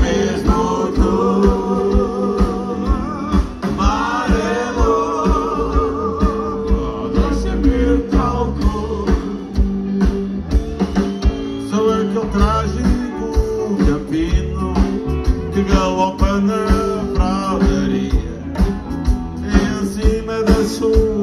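Live rock band playing through a PA: electric guitars, bass and drums with a regular beat, and singing over them.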